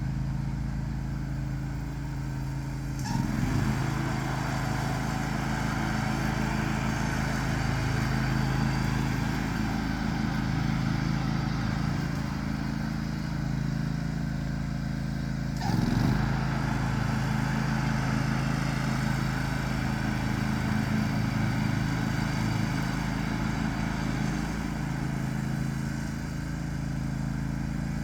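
John Deere X500 riding lawn tractor running steadily while mowing, its V-twin engine droning at a constant speed, with two brief jolts in the sound, a few seconds in and about halfway.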